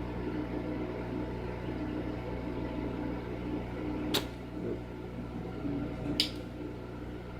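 Steady hum of a hot air rework tool's blower, with two sharp clicks about four and six seconds in, the second the louder.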